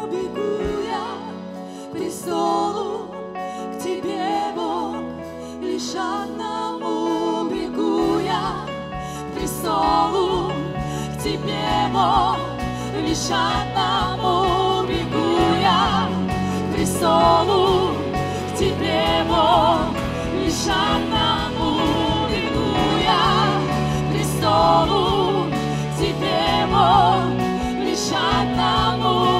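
Live worship band playing a slow Christian song: keyboards and guitars under several singers, with vibrato on the held notes. Bass comes in about eight seconds in and the band grows fuller from there.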